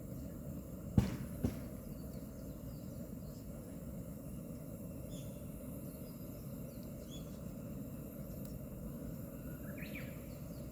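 Japanese bush warbler calling, with short bird chirps scattered through and a stronger rising call near the end, over a steady low rushing noise. Two sharp clicks, the loudest sounds, come about a second in, half a second apart.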